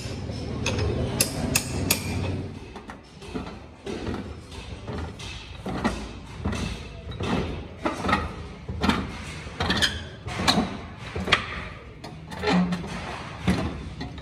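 Repeated metal knocks and clanks, roughly one to two a second, from work at a hand-cranked bead-rolling machine: hammer taps on the roller assembly and the handwheel being turned.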